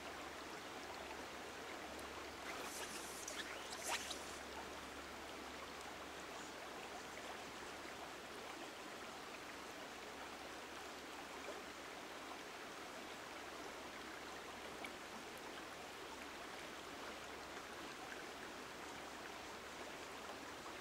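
Faint, steady rush of river water running over rocks, with a couple of brief swishes about three to four seconds in.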